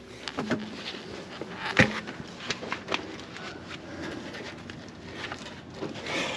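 Scattered light clicks and knocks, with one louder knock about two seconds in.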